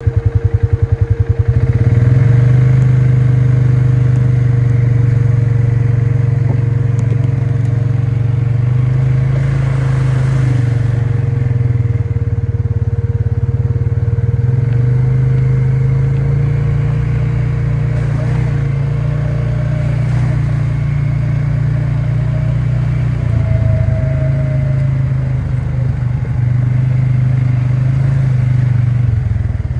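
ATV engine running under way along a dirt trail. It starts with slow separate pulses, then settles into a steady drone about two seconds in. A thin steady whine rides over it and stops about two-thirds of the way through.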